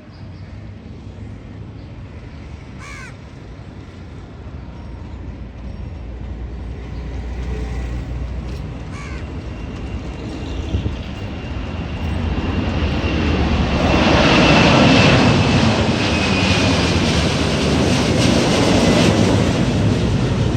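Airbus A330 twin jet engines at takeoff thrust, the noise building steadily to its loudest about two-thirds of the way through as the airliner passes. A high whine sits above the noise and falls slightly in pitch.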